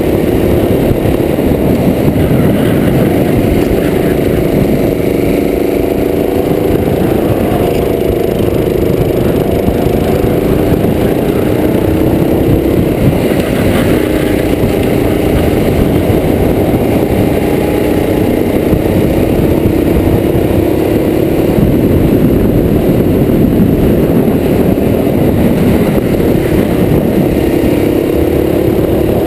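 Racing kart engine heard close up from the kart itself, running hard throughout, its pitch dipping and climbing again every few seconds as it slows for and accelerates out of the corners.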